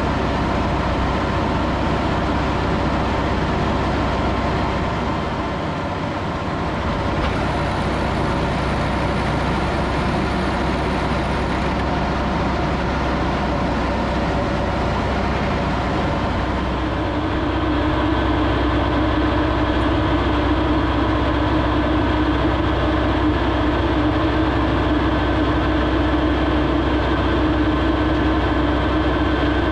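Fendt 828 Vario tractor running steadily under load while pulling a potato planter across the field, a continuous heavy machine drone. About halfway through, the drone gets slightly louder and a steady higher whine sets in.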